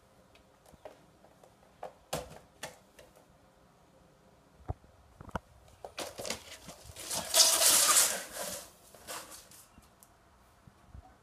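A kitten at play with household objects: scattered light taps and knocks, then a loud rustling, scratching scramble lasting about two seconds just past the middle, then a few more taps.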